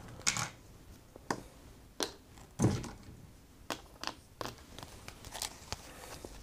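Playing cards being handled and set down on a tabletop: a scattering of short, light taps and rustles, with one fuller tap a little under three seconds in.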